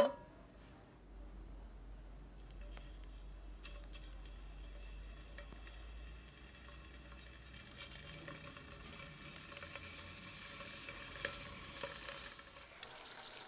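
Marinated steak strips frying in hot oil and butter in a skillet: a steady sizzle with fine crackling and popping that grows busier toward the end, then cuts off suddenly.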